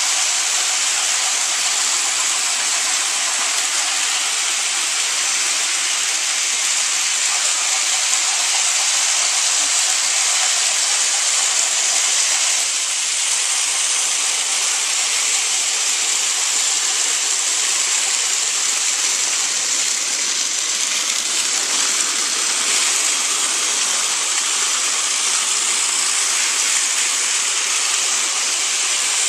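Many battery-powered Thomas & Friends Trackmaster toy engines running at once on plastic track, their small motors and wheels making one steady, dense whirring hiss.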